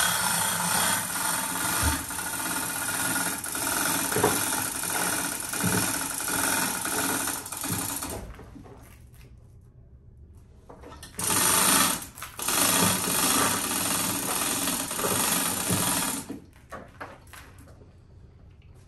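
Hand-operated chain hoist being worked: the chains run through the block with a rapid, steady metallic clatter. It comes in two spells, one of about nine seconds and, after a short pause, one of about five seconds.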